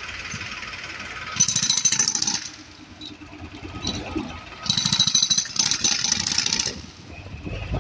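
Pneumatic jackhammer breaking up concrete, in two bursts of rapid hammering: one about a second in, lasting about a second, and a longer one of about two seconds starting near the five-second mark. Between the bursts, a steady engine noise runs underneath.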